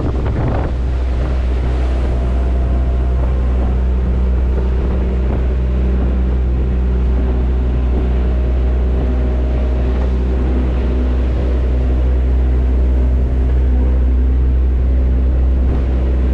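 Tour boat's engine running steadily at an even pitch, a constant low drone, with wind buffeting the microphone and water noise around the hull.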